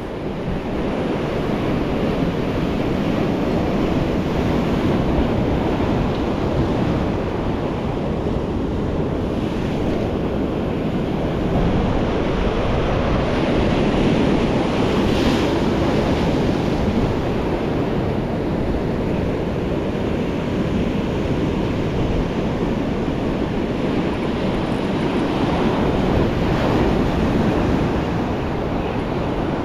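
Rough sea surf breaking and washing over rocks, a steady wash that swells and eases, with wind buffeting the microphone.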